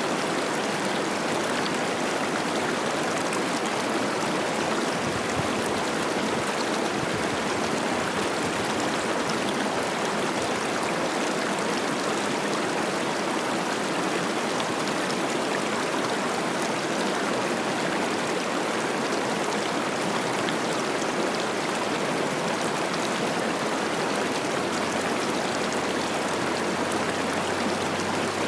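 Cache la Poudre River running high with spring snowmelt: a steady, even rush of babbling water.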